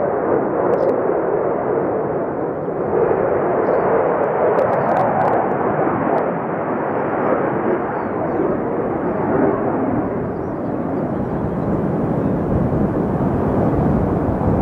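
Jet engine noise from a Sukhoi Su-35 fighter in display flight, heard from the ground as a steady rushing sound. It shifts lower in pitch about two-thirds of the way through.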